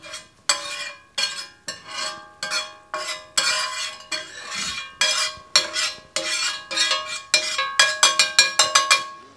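Slotted stainless steel spatula scraping and pushing melting butter around a cast iron crepe pan, in a dozen or so strokes, each leaving the pan ringing briefly. The strokes come quicker near the end.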